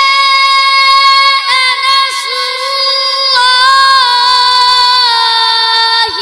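A boy's voice reciting the Quran in melodic tajweed (qirat) style, drawing out long held notes with small ornamental turns in pitch. The phrase breaks off near the end.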